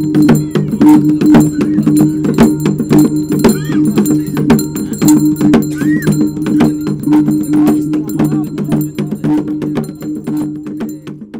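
Balia ritual music: fast, dense percussion with many rapid struck beats over a steady low drone.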